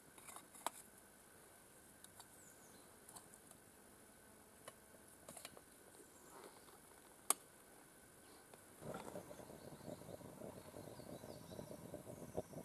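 Faint clinks and taps of an aluminium camp stove and pot being handled, with one sharp metallic click about 7 seconds in. From about 9 seconds in, a steady crackling rush from the lit stove heating a pot of goulash.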